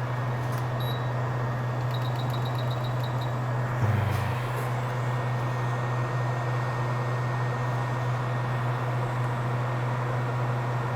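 Steady low hum and fan hiss of running repair-bench equipment. About two seconds in comes a quick run of about eight short high electronic beeps, and a brief low bump follows just before four seconds.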